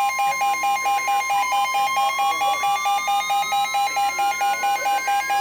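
Emergency Alert System broadcast alert tones over radio: a steady alert tone with a second tone beeping about five times a second. A third tone begins slowly rising in pitch about a second and a half in.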